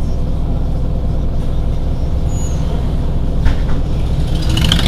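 Heuliez GX 127 city bus's diesel engine idling steadily while stationary. There is a sharp click about three and a half seconds in and a short hiss near the end.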